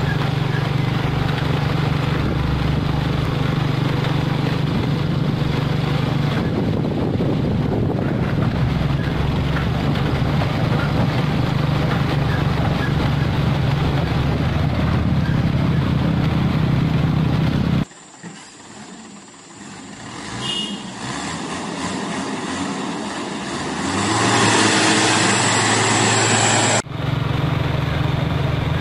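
Mitsubishi Fuso self-loader truck hauling an excavator, its diesel engine running steadily at road speed with tyre and road noise. About two-thirds through, the sound cuts abruptly to a quieter, thinner stretch that grows louder over a few seconds, then cuts back to the steady engine sound.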